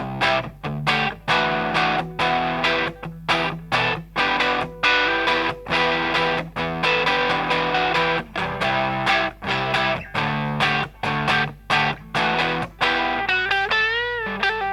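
Electric guitar played through a Grindcustoms Feng Drive overdrive pedal: choppy overdriven chords, each cut short, in a steady rhythm. Near the end a single note is bent and shaken with wide vibrato.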